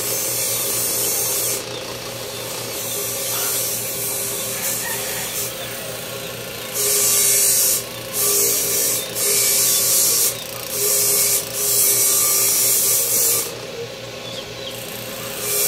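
A small power tool running with a steady hum. From about halfway through, a loud rasping hiss comes and goes in passes about a second long, as the tool works against a material.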